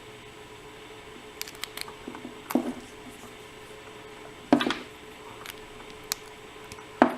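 Scattered small metal clicks and knocks as a lock follower is worked against a euro cylinder plug that it will not go into, with a louder clack about halfway through and another near the end.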